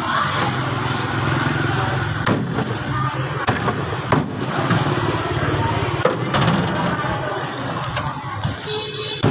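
Heavy cleaver chopping cooked meat on a thick wooden chopping block, with a handful of sharp knocks at uneven intervals, over the steady hum of an engine running.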